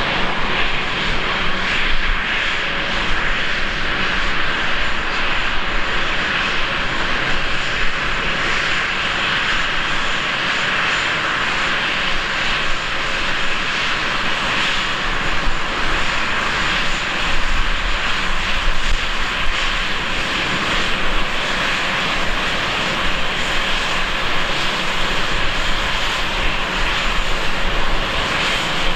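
Embraer 195's two General Electric CF34-10E turbofan engines running at taxi power as the airliner taxis, a steady rushing jet hiss with a faint high whistle.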